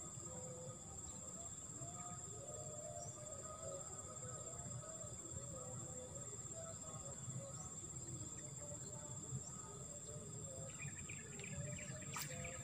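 Steady high-pitched insect drone, cricket-like, over faint outdoor ambience, with a single sharp click near the end.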